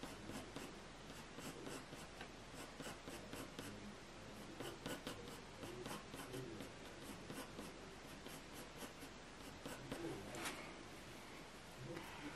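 Graphite pencil scratching over smooth hot-press watercolour paper in a run of many short, quick strokes as grass blades are drawn, with one slightly stronger stroke about ten seconds in.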